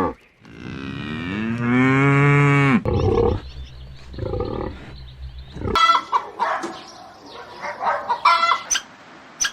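Cow mooing: one long moo that rises in pitch and then holds, from about half a second to nearly three seconds in, followed by shorter, lower moos. About six seconds in it gives way to a quick run of short, sharp, higher-pitched animal calls.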